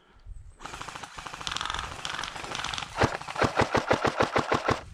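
Airsoft electric gun firing on full auto: a fast mechanical rattle that gets louder, ending in a loud run of sharp shots at about seven a second that stops abruptly.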